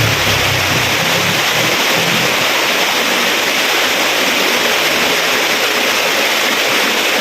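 Waterfall pouring over rocks close by: a loud, steady rush of falling water.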